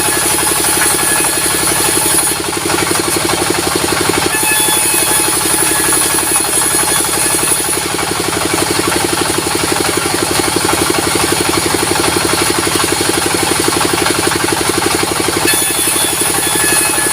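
Diesel-driven sawmill machinery running with a fast, steady engine beat, and a high hiss that drops away and comes back a few times.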